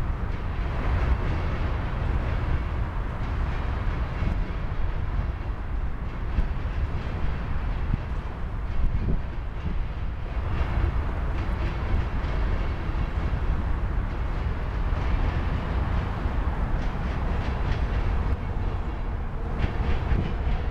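Freight train of covered hopper cars rolling past: a steady rumble of steel wheels on rail, with occasional clacks.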